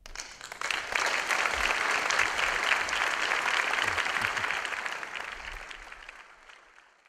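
Audience applauding, building up within the first second and fading away over the last few seconds.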